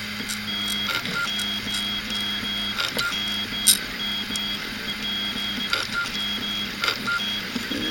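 3D printer's stepper motors running through short back-and-forth printing moves, driven by TI stepper driver chips at 1/32 microstepping, which run substantially quieter than the usual drivers. A low hum and a high whine stop and restart with each move, with a few sharp clicks along the way.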